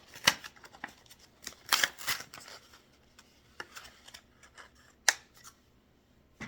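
A Pokémon trading-card pack being opened by hand: the wrapper crinkles and crackles in short irregular bursts, with a sharp snap about a third of a second in, a busier stretch around two seconds and one more sharp click about five seconds in.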